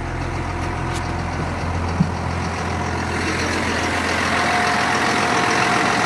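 1996 Blue Bird school bus engine idling while still warming up, getting steadily louder and more hissy as it is heard closer to the engine compartment, with a steady whine coming in after about four seconds. A single short knock about two seconds in.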